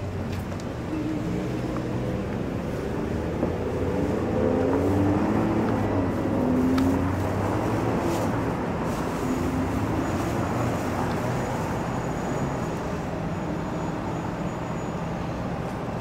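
City street traffic: a steady rumble of cars passing, with no words spoken.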